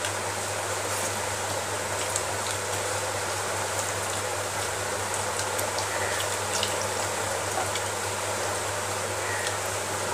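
Eating by hand from a steel plate: a few small clicks of chewing and fingers scraping rice off the plate, over a steady hiss with a low hum.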